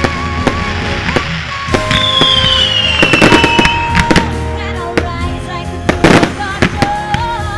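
Aerial fireworks bursting and crackling over a music soundtrack, with the sharpest volleys of bangs about three seconds in and again about six seconds in.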